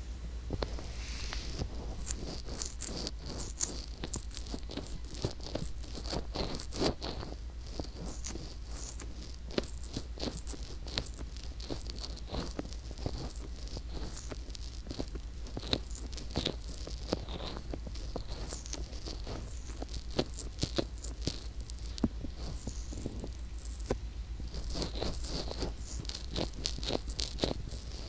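Fingertips rubbing and pressing the silicone ear of a binaural ear microphone, heard right at the mic: a dense run of crackling, scratchy rubbing and frequent sharp little pops, thicker near the end, over a low steady hum.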